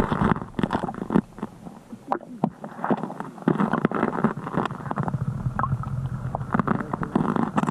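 Muffled, irregular knocking and sloshing water picked up by an underwater camera in its housing.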